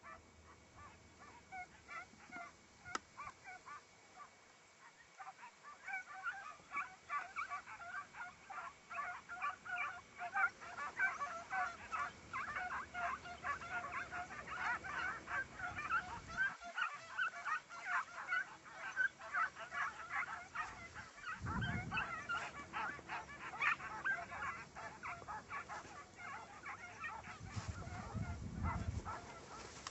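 A pack of scent hounds giving tongue on a hare's trail: many overlapping yelps and bays, faint at first and swelling into a steady chorus about six seconds in.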